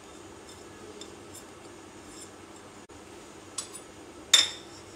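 Light taps and scrapes of kitchenware as chopped onion is scraped from a small bowl into a plastic tub, then a click and, near the end, one sharp ringing clink of kitchenware, the loudest sound. A faint steady hum runs underneath.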